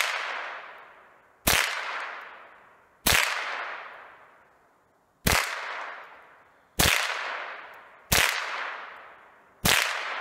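Remington Model 597 .22 LR semi-automatic rifle fired six times at an unhurried pace, roughly one shot every one and a half seconds. Each crack fades out in a long echo.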